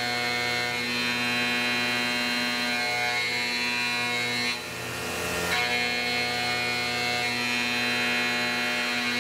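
Tormach CNC mill end-milling a metal block, its spindle at about 7500 RPM, making a steady, many-toned machining whine. The whine drops out briefly about four and a half seconds in, then resumes.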